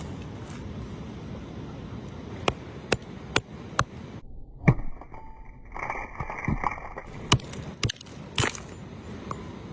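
A series of sharp knocks, four evenly spaced about half a second apart and then several louder irregular ones, over a steady rush of wind noise.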